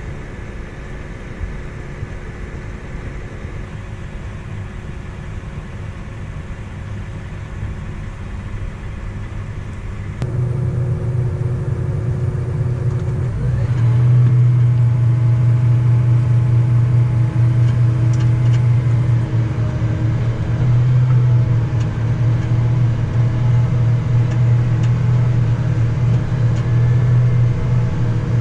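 Harvest machinery's diesel engine running steadily under load, stepping louder about ten seconds in. Around thirteen seconds the pitch rises briefly as it revs up, then it holds a louder, steady low hum.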